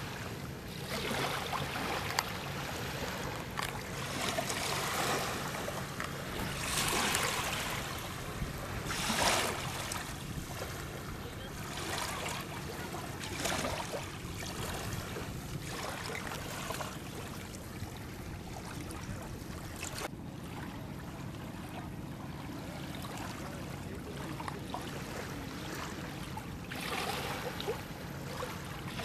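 River water splashing and sloshing around a small fishing boat, in uneven swells that are busiest in the first half, over a steady low hum.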